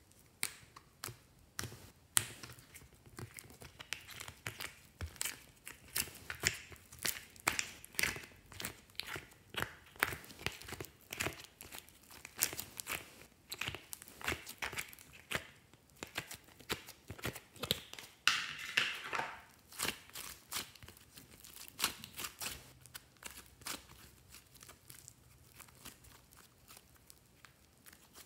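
Soft slime being squeezed and kneaded by hand, giving off irregular sticky clicks, pops and crackles. About two-thirds of the way through there is a longer crackling tear as the slime is stretched apart.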